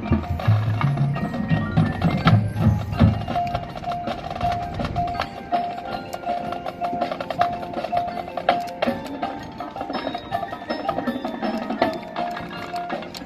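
Marching band playing: low brass and drums for the first five seconds, then a thinner passage of mallet percussion with a quick repeated pulsing note and sharp wood-block-like clicks.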